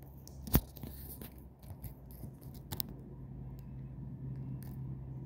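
Handling noise on a hand-held phone: a sharp click about half a second in, a brief rustle, and a few smaller clicks, over a steady low hum that grows slightly louder near the end.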